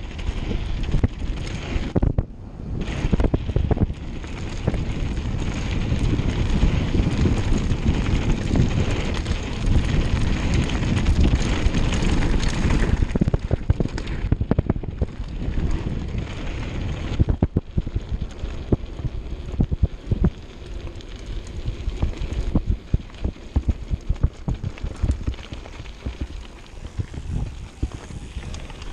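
Mountain bike ridden fast downhill on a dirt and gravel trail: heavy wind noise on the microphone over tyre rumble, with the bike rattling and clattering over bumps. The wind noise eases in the last few seconds, leaving the clatter more distinct.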